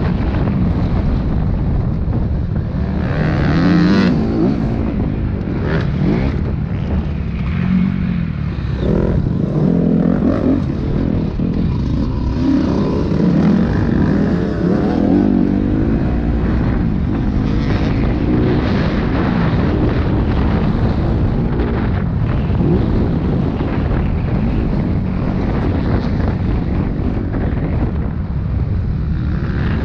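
Dirt bike engine revving up and down as it rides, its pitch rising and falling with the throttle, with wind buffeting the microphone.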